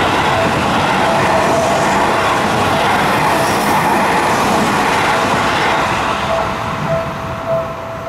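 Seibu Ikebukuro Line electric commuter train passing at a level crossing: loud, steady wheel-on-rail noise that dies away over the last couple of seconds as the last car clears. Under it the crossing's alarm bell keeps ringing about twice a second, standing out alone near the end.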